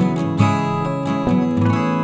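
Music: an acoustic guitar strumming chords, about two strums a second, with the chord ringing on near the end.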